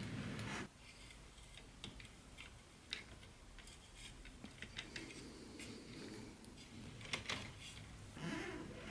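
Light scattered clicks and taps of small plastic model train pieces and packaging being handled. A steady low rumble cuts off suddenly less than a second in.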